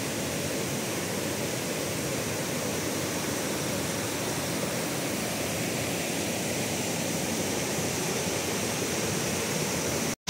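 Stream rushing over rock slabs and a small waterfall: a steady, even rush of water that cuts off abruptly near the end.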